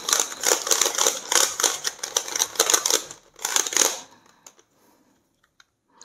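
YuXin Treasure Chest 3x3 puzzle cube having its plastic layers turned quickly by hand: a fast run of clicks and clacks that stops about four seconds in.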